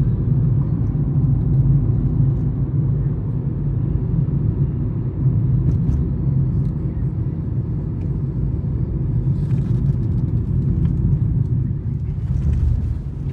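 Road noise heard from inside a moving car: a steady low rumble of engine and tyres, with brief swells of hiss about two-thirds of the way through and again near the end.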